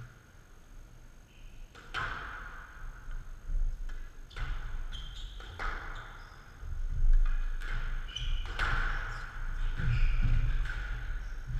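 Squash rally on a glass-walled court: the ball is struck by rackets and hits the walls several times, each hit a sharp crack with a short ring, while court shoes squeak and thud on the floor.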